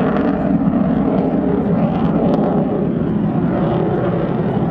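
Jet aircraft engine noise, loud and steady, as a display jet flies overhead.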